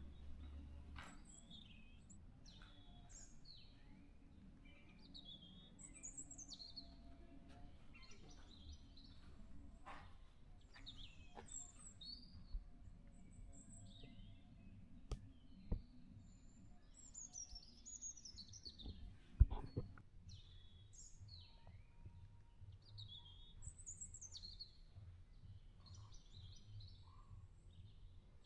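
Several birds chirping and calling, with short falling whistles and warbles overlapping one another. A few sharp clicks come in the middle, the loudest just after the middle.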